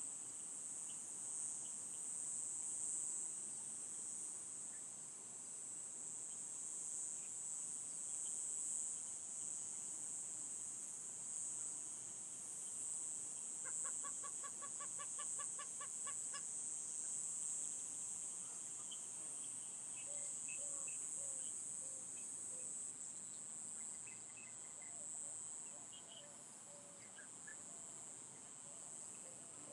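Steady high-pitched chorus of insects, with a bird's rapid run of repeated calls, about seven a second, lasting about three seconds in the middle, and a few short bird chirps later on.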